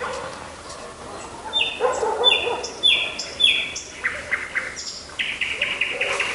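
Animal calls: a run of short, high chirping calls, four alike about half a second apart, then a quicker stuttering series near the end.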